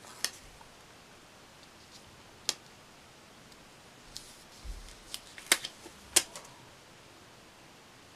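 Paper and sticker handling on a planner page: a few sharp crinkles and taps as a sticker is handled and pressed down, most of them bunched between about four and six and a half seconds in.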